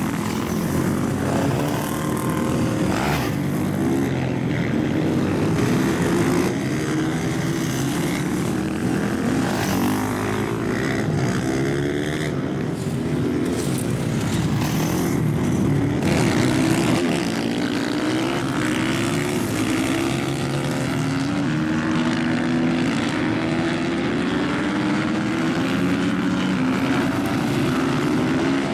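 Several supermoto racing motorcycles revving hard on the track, their engine notes overlapping and repeatedly climbing and dropping in pitch.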